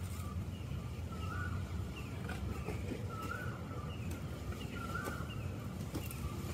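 A bird calling over and over, a short call about every two seconds, over a steady low rumble.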